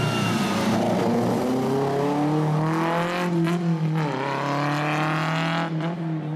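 Classic Alfa Romeo 105-series coupe rally car's twin-cam four-cylinder engine pulling hard uphill under full throttle. The pitch climbs, drops sharply at a gearshift about four seconds in, then climbs again before the driver lifts off near the end.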